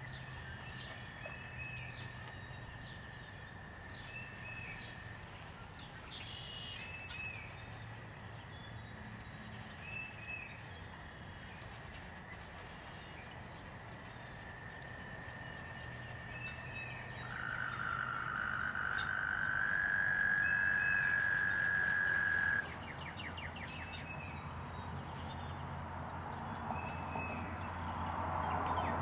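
Frogs trilling: long, steady, high trills, the loudest one swelling for about five seconds and cutting off suddenly, with short chirps repeating every couple of seconds.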